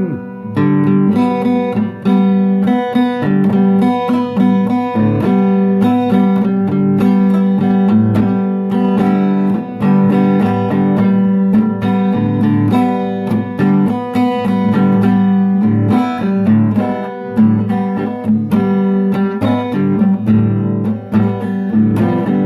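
Acoustic guitar strummed in steady chords, with no singing.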